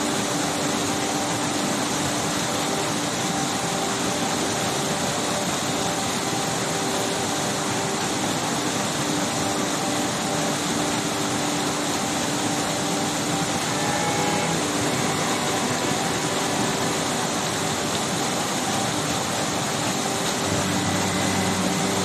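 Waterfall cascading over rocks in a mountain stream: a steady, dense rush of falling water that does not let up.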